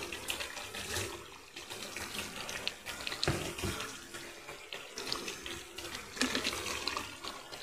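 A steel spoon stirring a thick nut paste into wet mutton gravy in a pressure-cooker pot: squelching, sloshing stirring with scattered clinks of spoon against the pot.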